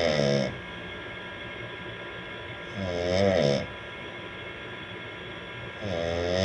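A man snoring in slow, regular breaths, one loud snore about every three seconds. Each snore lasts under a second and wavers in pitch, with a faint steady hum underneath.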